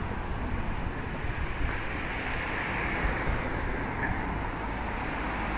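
Steady road traffic noise, with cars passing along the street beside the parked car.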